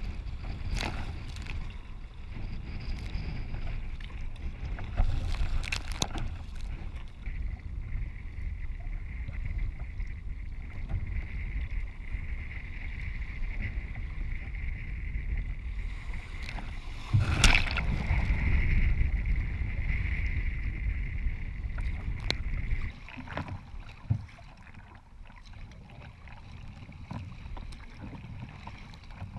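Wind rumbling on the microphone and water splashing and rushing against a sea kayak's hull as it surfs downwind through choppy waves. There is a loud splash a little past halfway, and the wind rumble drops with several seconds left.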